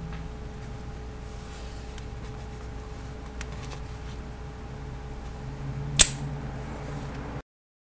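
One sharp metallic click from a miniature pistol's slide and slide release lever about six seconds in, with a few faint ticks of the small metal parts before it. A steady low hum runs underneath.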